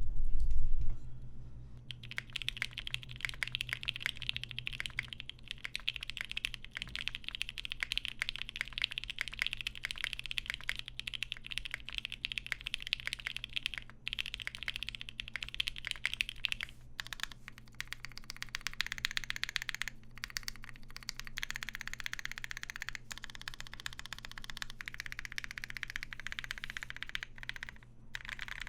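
Fast, continuous typing on a GHS.RAR 75% mechanical keyboard fitted with lubed and filmed Alpaca linear switches and GMK Olivia keycaps: a keyboard sound test. A loud low thump comes in the first second, before the typing starts.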